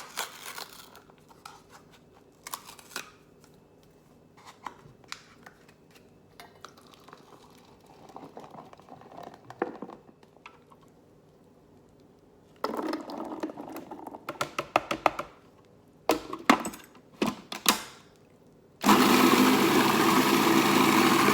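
Scattered light clicks and knocks of handling at the food processor, with a few short bursts of clatter. About 19 seconds in, the food processor's motor starts and runs steadily, blending the chickpeas into hummus.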